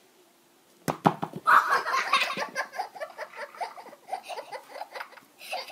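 A sharp thump, then a second knock just after it, followed by boys laughing hard in rapid bursts.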